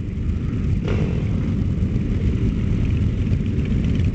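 Low, steady rumble of a crowd of sport motorcycle engines idling and running slowly in a tight pack, with a sudden sharper burst about a second in.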